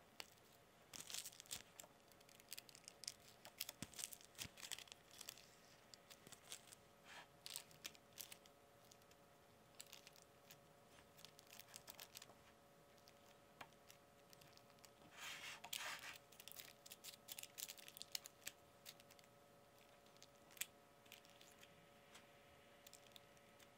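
Faint crinkling and rustling of a parchment-paper liner in a metal loaf pan, in many short irregular bursts, as cake batter is piped in and spread with a spatula. There is a longer rustle about two-thirds of the way through and a single sharp click near the end.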